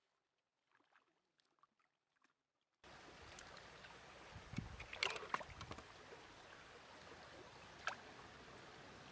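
Near silence with a few faint clicks, then about three seconds in a steady rush of a shallow stream running over stones sets in abruptly. Over it come splashes and knocks as a woven bamboo fish trap is handled and set down in the water, a cluster about two seconds later and one more near the end.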